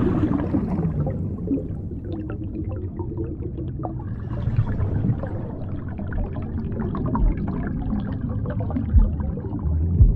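Water gurgling and trickling, with many small scattered clicks.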